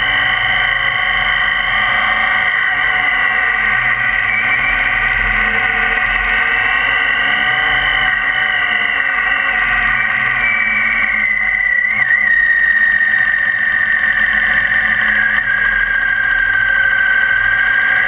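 BMW K 1600 GTL's inline-six engine running at road speed as it rides the bends, heard as a high, steady whine whose pitch drops about eleven seconds in as the bike slows.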